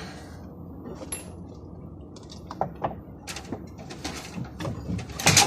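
Metal clunks and scraping as a steering rack is shifted and knocked against the subframe and body while being worked out from under the car: several separate knocks, the loudest near the end.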